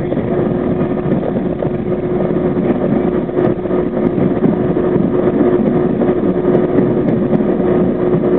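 R32 subway car running along elevated track: a steady rumble of wheels on rail with a steady hum held throughout.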